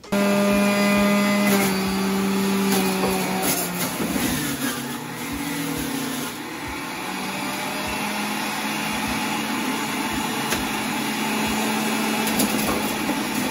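Electric juicer switching on abruptly and running, its motor humming steadily under a dense grinding as potato pieces are pushed down the chute and shredded to draw out their liquid.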